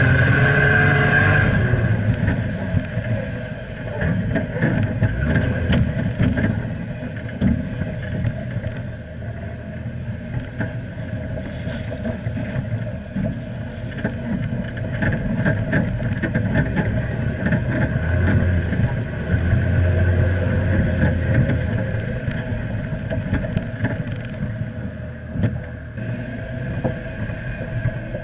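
Jeep Wrangler JKU Rubicon's 3.6-litre V6 running under load as it climbs through soft, churned sand, heard from under the chassis, with the tyres churning and sand spattering against the underbody. The engine note swells for a few seconds about two-thirds of the way through.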